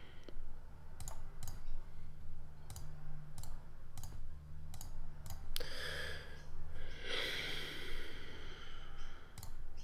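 Scattered single clicks of a computer mouse, about a dozen spread over several seconds, over a low steady hum.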